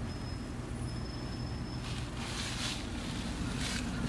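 A steady low mechanical hum, like a running motor, with two brief bursts of rustling about two seconds in and near the end.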